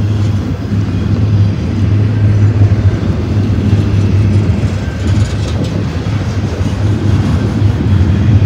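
Double-stack container well cars of a freight train rolling past close by: steel wheels on the rails making a loud, steady rumble.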